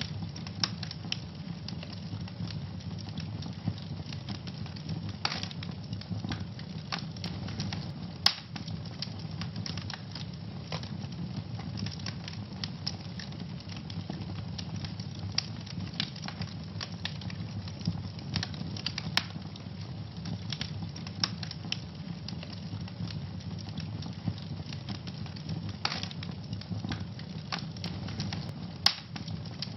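Wood fire in a fireplace burning steadily with a low rush, and irregular sharp crackles and pops throughout, a few louder snaps standing out.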